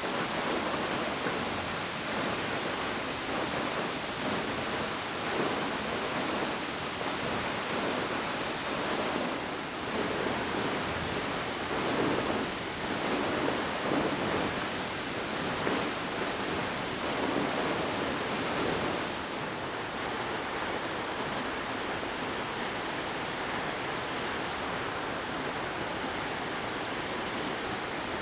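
Waterfall: a steady rush of falling water. About 20 s in, the sound changes and the highest hiss drops away.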